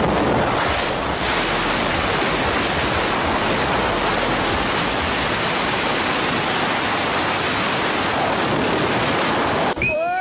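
Steady, loud rushing noise that is even across the whole pitch range, cut off abruptly near the end.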